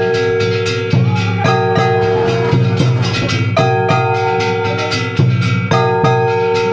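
Japanese festival float music: drums struck in a steady rhythm under long held melodic notes that change every second or two.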